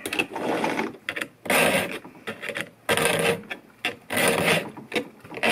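Round chainsaw file rasping across the cutter teeth of a Milwaukee M18 chainsaw's chain, hand strokes about once a second, sharpening the chain.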